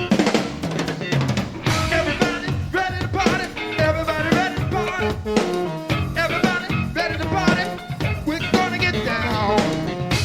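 Live jazz-funk band playing an up-tempo number: drum kit with rimshots driving a steady beat under a bending lead melody line.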